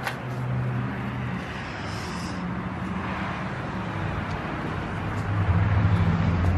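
Steady low hum and rumble of road traffic or a vehicle engine, growing louder about five seconds in.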